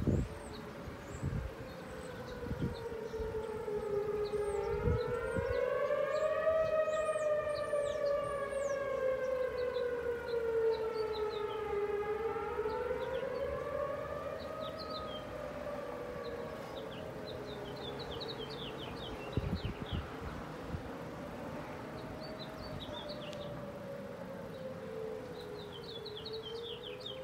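Outdoor civil-defense warning siren (a tornado siren) wailing, its pitch slowly rising and falling over several seconds at a time. Birds chirp faintly, and there are a couple of low bumps on the microphone near the start and about two-thirds of the way through.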